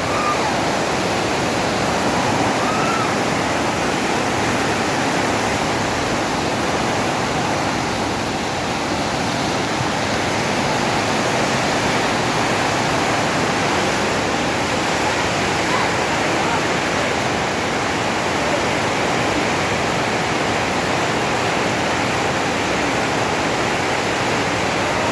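Steady rushing of floodwater, an even noise that holds at one level throughout.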